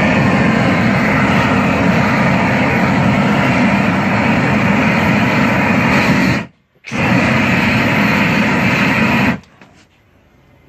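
Propane torch burner running at full blast with a loud, steady rushing noise. It cuts out for under half a second about six and a half seconds in, comes back, and stops abruptly about nine and a half seconds in.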